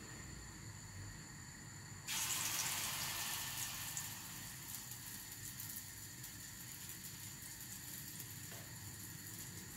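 Potato pancakes frying in oil in a pan, sizzling steadily; about two seconds in the sizzle suddenly jumps louder, then slowly settles back down.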